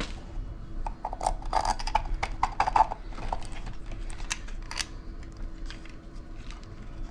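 Metal bolts, washers and nuts clicking and clinking irregularly as they are handled and fitted into drilled holes in a wooden ship's wheel, with a busier run of rattling knocks about a second in.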